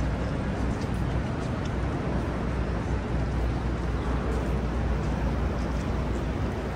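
Steady city street noise: an even, low rumble of traffic with no distinct events.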